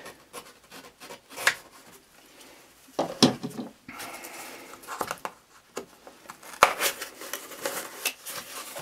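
Packing tape being peeled off a small cardboard box, with a rasping pull of about a second near the middle, then the cardboard flaps rustling as they are opened. Scattered clicks and knocks of the box being handled, one sharp one about two-thirds of the way through.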